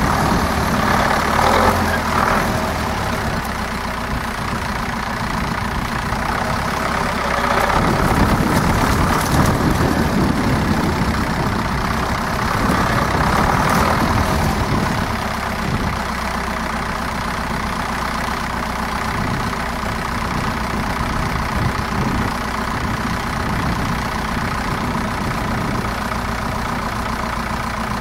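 Zetor 7245 tractor's four-cylinder diesel engine running steadily, louder in three spells (about a second in, around eight to ten seconds, and around thirteen to fifteen seconds) as the tractor pulls forward with its trailer tipped up.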